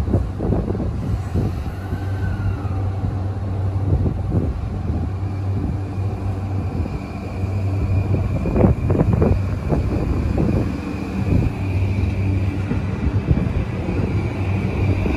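E235 series 1000 electric train running into the station alongside the platform: a steady low hum, a run of wheel clatter over rail joints about eight to eleven seconds in, and a high squeal growing louder near the end as it slows.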